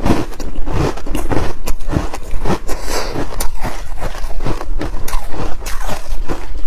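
Close-miked chewing of hard frozen buckwheat ice: a steady run of crisp, irregular crunches, a few a second.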